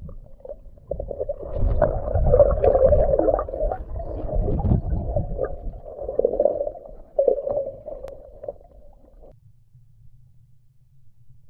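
Muffled underwater sound of water churning and gurgling around a submerged camera, with heavy low rumbles. It cuts off suddenly about nine seconds in, leaving a faint low hum.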